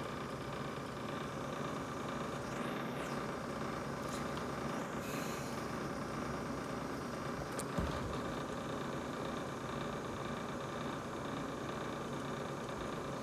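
Brand new GE refrigerator running with a steady mechanical hum and a steady whine, with one short click about eight seconds in.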